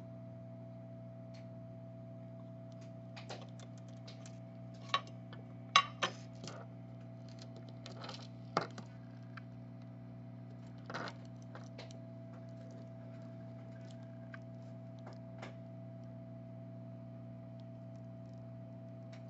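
Light scattered clicks and taps of a soldering iron and solder wick working on a phone circuit board during desoldering, the sharpest about six seconds in, over a steady low electrical hum.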